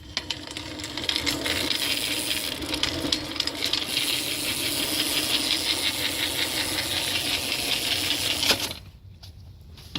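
Mongoose cassette rear hub of a BMX bike freewheeling, its ratchet pawls clicking rapidly and steadily for about eight and a half seconds before stopping suddenly.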